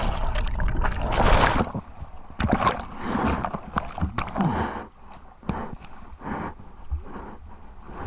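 Seawater rushing, gurgling and splashing right over an action camera at the surface as it goes under and comes back up through whitewater. The loudest rushes come in the first few seconds, followed by quieter sloshing.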